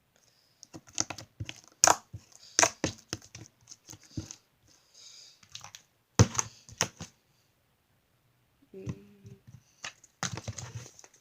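Slime being squished, poked and stretched by hand, giving irregular sharp wet clicks and pops in clusters, with a pause of a couple of seconds late on.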